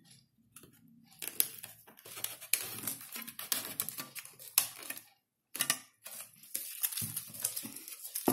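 Plastic CDs being worked into slits in a foil-covered cardboard tube: irregular clicks, taps and scraping of plastic against cardboard.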